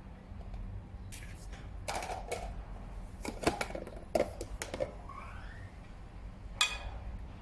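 A handful of irregular light clicks and knocks, like objects being handled, with a short rising squeak about five seconds in and a sharper click near the end.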